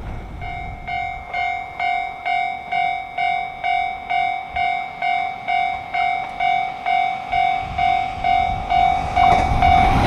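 Japanese level-crossing warning bell ringing at about two strokes a second, starting about half a second in and growing louder. Near the end, the running noise of an approaching JR West 521-series electric train comes in.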